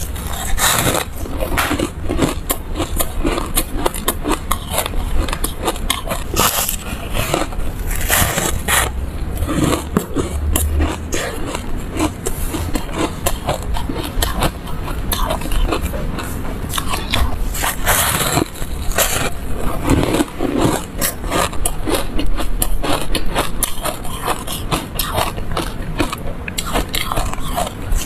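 Close-miked biting and chewing of yellow foam ice: a dense, continuous run of crisp crunches and crackles, with louder clusters each time a new bite breaks off.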